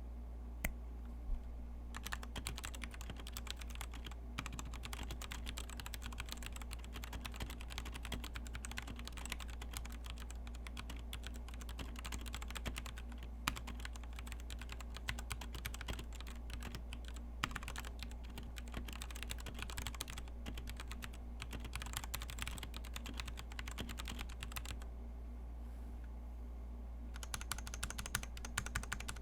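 Continuous typing on a Royal Kludge RKG68 65% hot-swap mechanical keyboard: dense, irregular key clicks, with a short lull a few seconds before the end. A steady low hum runs underneath.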